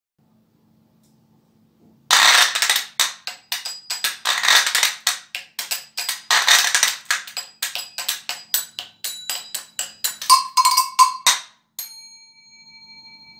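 Washboard played as percussion with gloved fingers: fast rhythmic scrapes and taps on the ridged metal board, starting about two seconds in after a short silence. Near the end a bell mounted on the board is struck a few times, and the last stroke is left to ring out and fade.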